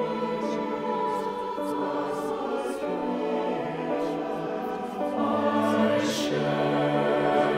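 Mixed choir of men's and women's voices singing sustained chords on the words "flower into kindness." About five seconds in, a low voice part enters and the sound swells louder.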